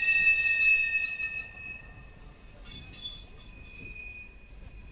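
Freight car wheels squealing against the rail as a manifest freight train rolls past: a loud, high, steady squeal that fades out about two seconds in, followed by fainter, shorter squeals.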